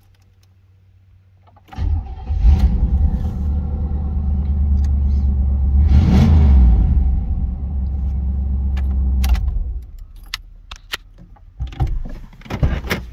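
Tuned Port Injection 350 V8 of a 1987 Camaro IROC-Z, heard from inside the cabin, starting about two seconds in and running steadily. It rises briefly around six seconds in and is shut off near ten seconds, followed by a few clicks and knocks near the end.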